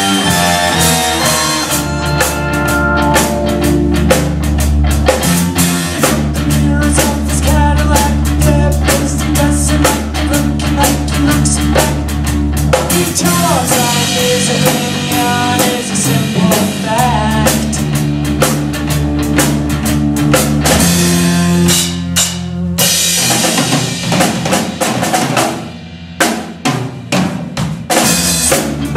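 Live rock band playing an instrumental stretch: a busy drum kit over electric bass, electric guitar and keyboard. The band thins out briefly twice a few seconds before the end, then comes back in full.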